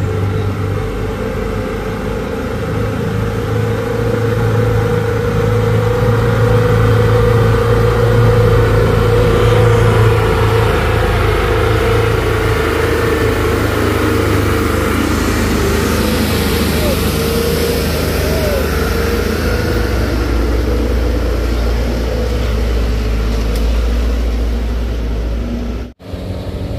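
Truck engines running hard under load on a steep dirt climb, with a light truck straining as it tows another truck uphill. Voices can be heard behind the engine noise.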